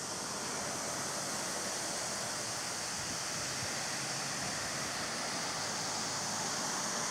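Steady rushing outdoor background noise, an even hiss without distinct events.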